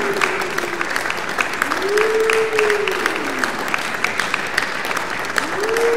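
Audience clapping steadily. Over it, a pitched tone swoops up and slides back down about every three to four seconds: once a little after the start, and again just before the end.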